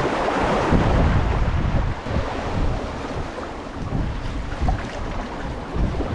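Wind buffeting the microphone over waves washing against the concrete tetrapods of a sea breakwater, with a louder surge of water in the first second or so.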